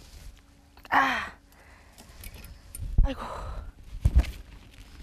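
A man's short wordless vocal sounds: a loud exclamation with a bending pitch about a second in and a weaker one about three seconds in, among a few short low thumps.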